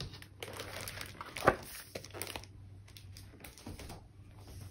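A large hardcover atlas being handled: pages and cover rustling, a thump about one and a half seconds in, then a few light knocks as the book is moved off the table.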